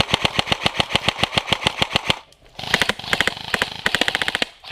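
Airsoft rifle firing two rapid full-auto bursts, separated by a short pause about two seconds in.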